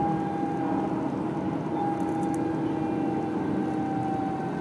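Electric tram running along street track, heard from inside: a steady whine from the drive over an even rolling rumble.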